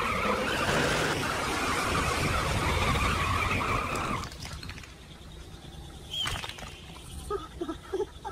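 Cartoon vehicle sound effect: an engine and rushing noise as a vehicle speeds past, dropping away about four seconds in. A few short squeaky blips follow near the end.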